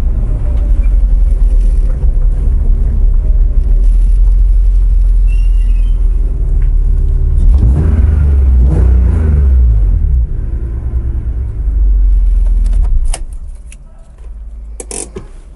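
The 2001 BMW 330Ci's 3.0-litre straight-six runs at low revs through a stainless long-tube header and Magnaflow exhaust, heard as a deep rumble inside the cabin. Its pitch rises and falls briefly in the middle. The engine sound drops away about 13 seconds in as the car is shut off, followed by a few sharp clicks.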